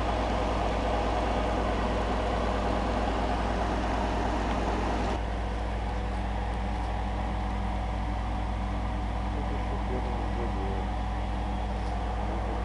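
Engine of a core-drilling rig running steadily, a low, even drone. Its level drops slightly and it loses some of its upper hiss about five seconds in.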